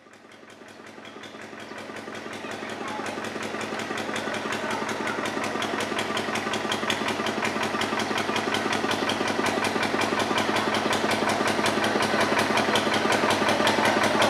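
An engine running steadily with a fast, even pulse, fading up over the first few seconds.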